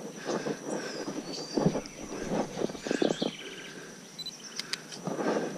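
Birds calling: a falling whistle about a second in, a short trill near the middle and sharp chirps near the end, over footsteps on a muddy dirt track that fade out after about three seconds. A faint steady high whine runs underneath.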